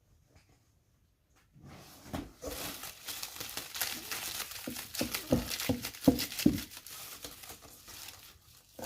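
Packing material rustling and crinkling as items are unwrapped and lifted out of a box, with scattered light knocks from things being handled. It starts after a short stretch of near silence.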